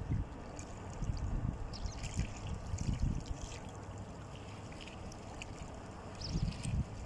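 Small wake waves from a passing push boat lapping and splashing at the canal bank, with wind gusting on the microphone.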